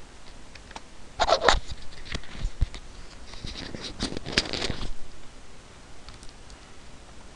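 Computer keyboard typing: a few short, irregular clusters of key clacks, quieter after about five seconds.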